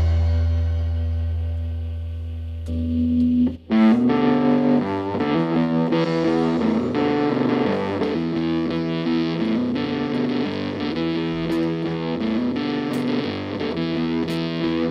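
Solo distorted electric guitar, a semi-hollow body: a held low chord rings and fades, breaks off for a moment about three and a half seconds in, then a repeating riff of picked notes takes over.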